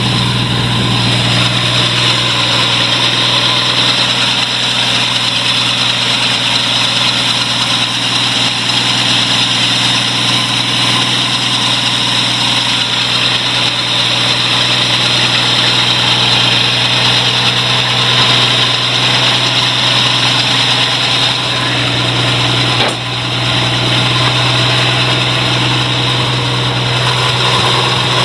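A 1983 Jeep CJ7's cold engine running steadily just after a hard cold start, with a brief dip in level about five seconds before the end.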